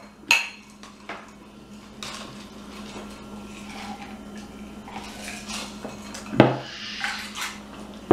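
Two stemmed drinking glasses clinking together in a toast, a short bright ring. A few small tableware sounds follow, then a loud knock about six seconds in as a glass is set down on the table.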